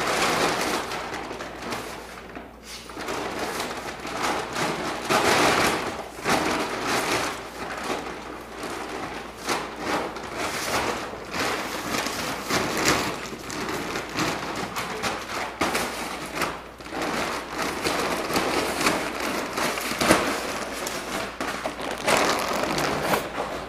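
Empty plastic dog food bag crinkling and rustling as a dog noses inside it and pushes it across a concrete floor. It is a dense, crackly rustle with many sharp crackles and one louder knock about twenty seconds in.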